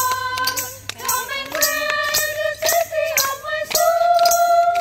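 Group of women singing a song together, with tambourine jingles and hand claps keeping the beat; a long note is held near the end.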